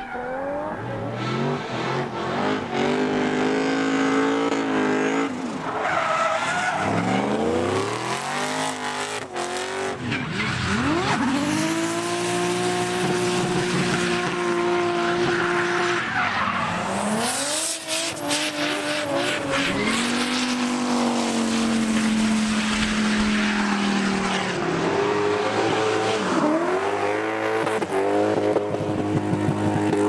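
Drift cars sliding through corners: their engines are held at high revs through each long slide, then drop and climb again between slides. Tyres squeal and skid throughout.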